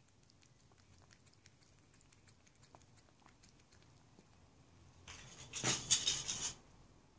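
Domestic cat lapping liquid from a bowl: faint quick licking clicks. About five seconds in, a louder burst of noise lasts about a second and a half.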